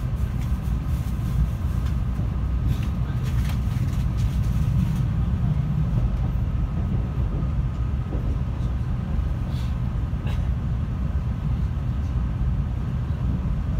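Running noise of a 700 series Rail Star Shinkansen heard inside the passenger cabin: a steady low rumble, with a few faint clicks about a third of the way in and again later.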